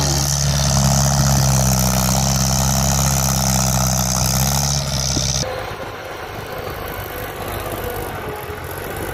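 Compact Japanese diesel tractor engine running hard under load, a loud steady drone, as the tractor hauls sacks of rice through a muddy paddy. About five seconds in the sound cuts to a second tractor's engine, quieter and rougher.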